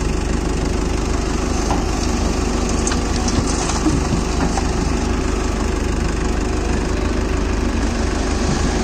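Diesel engine of a Hyundai 210 crawler excavator running steadily under load. Around three to four seconds in, a bucketful of soil and clods drops into the steel tractor trolley with a few short rattles.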